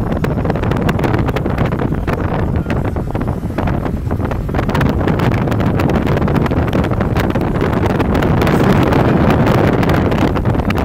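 Wind rushing and buffeting against the microphone over the steady road and vehicle noise of a vehicle travelling fast on a freeway, getting a little louder near the end.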